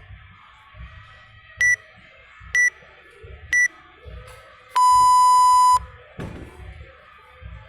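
Workout interval timer counting down: three short high beeps about a second apart, then one long, lower beep that signals the start of the next round. Background music with a steady beat plays throughout.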